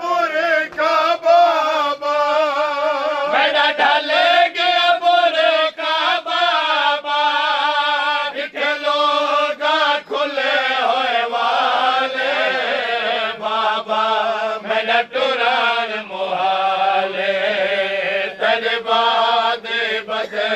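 Men's voices chanting a noha, a Shia mourning lament, in long, wavering held notes.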